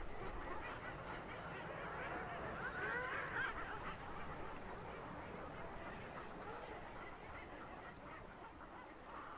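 Seabirds calling from a cliff colony, many calls overlapping in a steady chorus, loudest about three seconds in.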